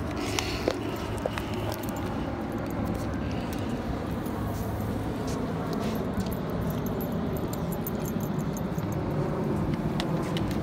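Steady rushing noise of beach wind and surf, with light metallic jingling and clicking from the dogs' leash hardware as they are walked.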